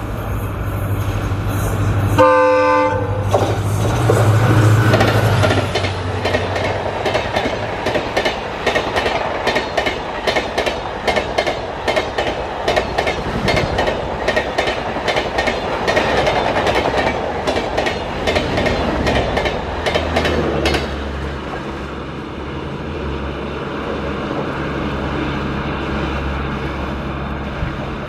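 An Indian Railways WDP-4D diesel locomotive, with its EMD two-stroke V16 engine, passing at full speed. Its engine runs with a deep hum and its horn gives a short blast about two seconds in. Then the passenger coaches rush past with a rapid, rhythmic clatter of wheels on the track for about fifteen seconds, and fade to a low rumble as the train draws away.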